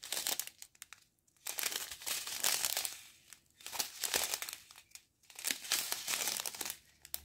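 Thin clear plastic bags of diamond-painting rhinestones crinkling as they are handled, in several bouts of rustling with short pauses between.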